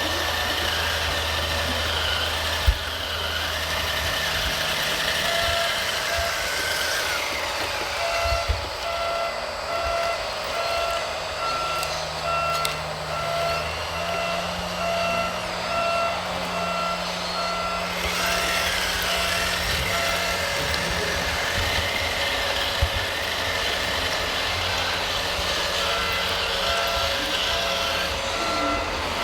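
Reversing beeper of an RC model truck, a steady on-off beep of one pitch, over a running truck engine sound. The beeping stops about three quarters of the way through and starts again near the end.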